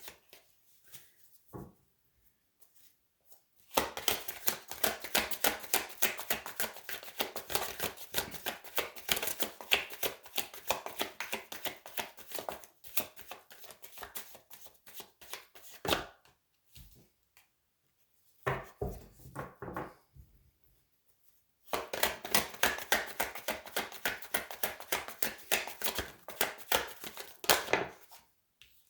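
A deck of tarot cards being shuffled by hand: dense, rapid flicking in two long spells about ten and six seconds long, with a short burst between them.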